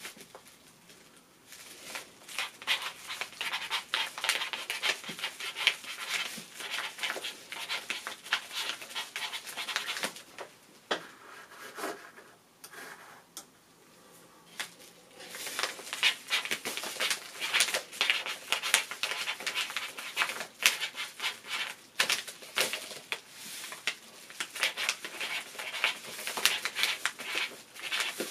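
Ballpoint pen scratching across a paper envelope as letters are written in quick strokes, in runs broken by a few pauses of a second or more between words.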